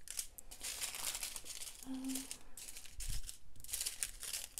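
Small plastic bags of diamond-painting drills crinkling and rustling as they are picked up, sorted and laid down, with a soft thud about three seconds in.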